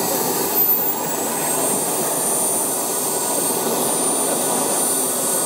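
Miniature turbine jet engine of a radio-controlled Mitsubishi F-2A model running on the ground: a steady jet rush with a thin high-pitched turbine whine over it.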